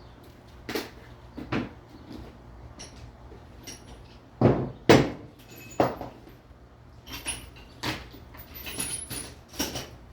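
Irregular metallic clinks and knocks of hand tools on a Nissan VG33E engine as its Allen-head bolts are worked loose, about a dozen strikes with the loudest pair about halfway through.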